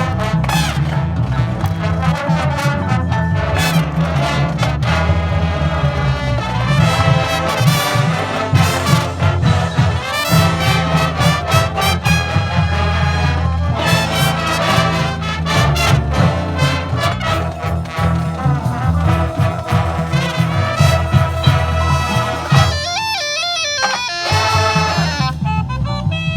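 Marching band playing its field show, the brass section carrying the melody over a heavy low end; about 23 seconds in the low end drops out for a moment while a wavering higher line plays.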